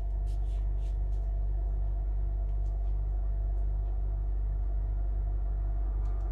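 Steady low hum, with a few faint rustles of paper pattern pieces being shifted by hand.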